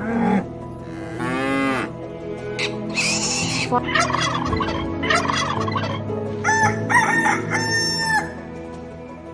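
A series of farm fowl calls, with a rooster crowing among them.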